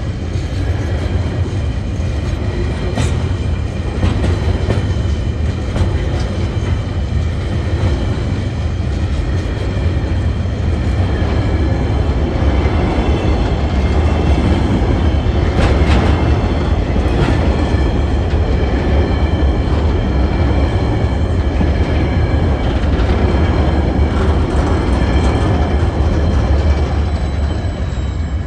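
Empty coal hopper wagons of a freight train rolling past close by: a steady heavy rumble of wheels on rail with wheel clatter, a few sharp clanks, and a faint steady high ringing over it.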